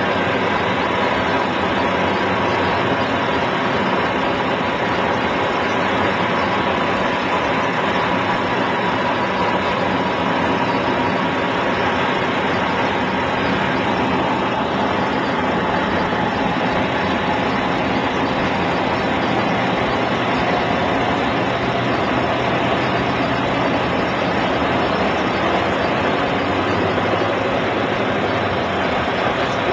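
Piper Super Cub floatplane's piston engine and propeller running steadily, a loud even drone whose pitch eases slightly lower about halfway through.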